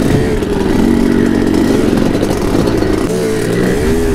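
Two-stroke dirt bike engine at low speed, its revs rising and falling with the throttle as it is ridden slowly over rocks, dipping and picking up again about three seconds in.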